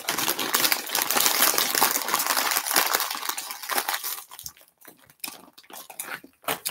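Plastic potato-chip bag crinkling steadily as a hand rummages in it for about four seconds, then only a few scattered small clicks and crunches.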